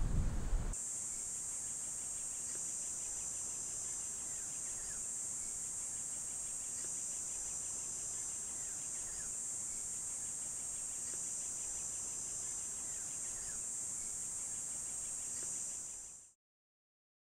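Insects making a steady, high-pitched drone, with faint short chirps under it. The sound fades out near the end.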